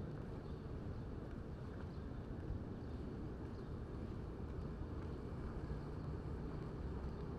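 Steady low rumble of city street ambience, even throughout with no single sound standing out.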